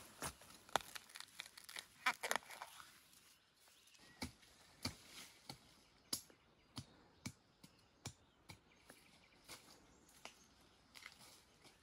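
Dry leaf litter and plant stalks crackling, rustling and snapping in irregular sharp clicks as bamboo shoots are picked by hand from the forest floor.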